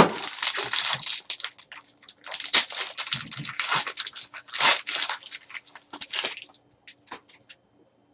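A trading card pack wrapper being torn open and crinkled, in a dense run of crackling that stops about six and a half seconds in. A few light clicks follow.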